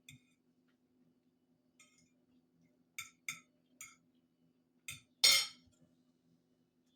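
Eating utensil clinking lightly against a dish, a handful of short sharp clicks spread out. A louder, longer knock comes a little after five seconds in.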